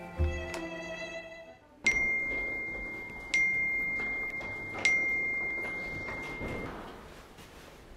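Background music fades out, then a smartphone message alert pings three times, about a second and a half apart: a single high ringing tone that decays after each strike.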